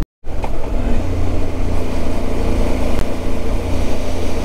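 Motorcycle engine running steadily while riding, under a broad rush of wind and road noise. The sound cuts out completely for a moment at the very start.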